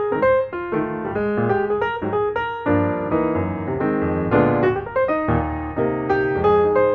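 Background piano music: a run of struck notes and chords, each fading after it is played.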